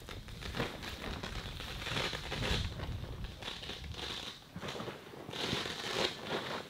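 Irregular rustling and crinkling of a Naturehike inflatable air tent's fabric as it is handled to be deflated, with scattered small crackles and two louder stretches about two seconds and five and a half seconds in.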